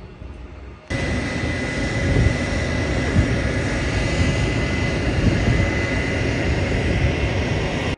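Private jet's engines running as it rolls along the runway: a steady jet noise with a faint high whine, starting abruptly about a second in.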